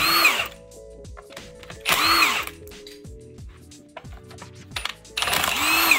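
Cordless impact wrench run in three short trigger pulls, its motor winding up and back down each time as it backs bolts out of an engine block.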